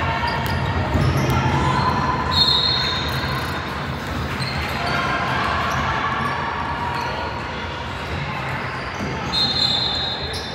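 Basketball game echoing in a gym: the ball bouncing, scattered voices, and two short high-pitched squeaks, one about two seconds in and one near the end.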